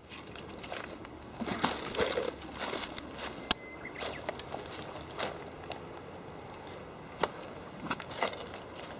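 Footsteps going down an outdoor stairway, with irregular crunching and rustling steps and a few sharper scuffs.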